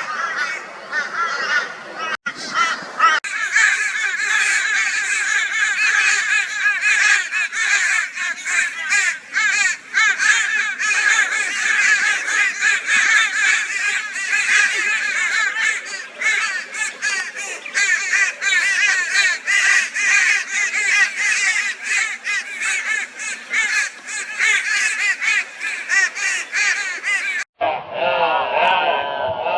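A flock of crows giving raucous, overlapping caws nonstop, many birds calling at once while mobbing a barn owl. It breaks off abruptly near the end, and a different, lower-pitched sound follows.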